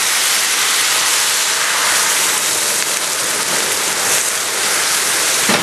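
Hot chicken broth sizzling and boiling up in a hot skillet as it hits toasted kasha (buckwheat groats): a loud, steady hiss.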